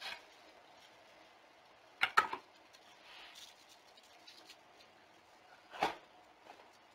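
Knocks and light clatter from things being handled inside a wire animal cage: a quick cluster of sharp knocks about two seconds in and one more, single knock near the end, over a faint steady hiss.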